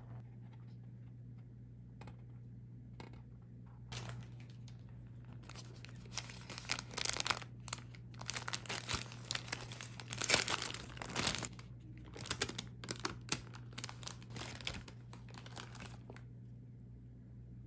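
A paper food wrapper crinkling and rustling in quick, irregular bursts as it is handled and opened by hand, loudest about ten seconds in.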